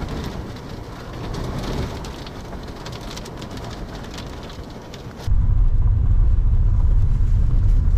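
Rain and wind noise with irregular pattering for about five seconds. Then it cuts abruptly to a much louder, steady low rumble.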